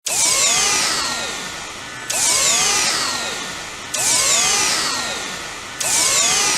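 Sci-fi effect made from a recorded vacuum cleaner motor, played four times about two seconds apart. Each starts suddenly with sweeps falling from high to low and a tone that rises and then holds, then fades.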